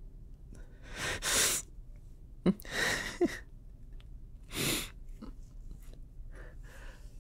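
A person breathing audibly: three deep breaths, at about one, three and four and a half seconds, with a mouth click just before the second and a short catch in the voice at its end.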